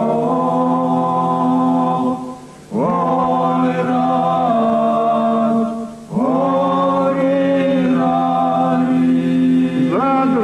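Unaccompanied male voices singing a folk song: a lead voice carries the melody over a sustained low drone from the other men. Two short breaths break the sound, each followed by the lead voice sliding up into a new phrase.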